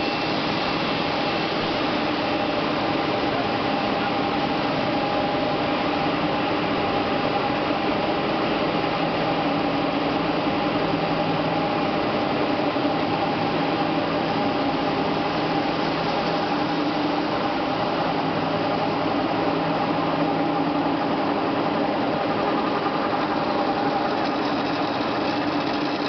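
Aluminum rod continuous casting and rolling line running: a steady machine din of humming drives over a dense hiss.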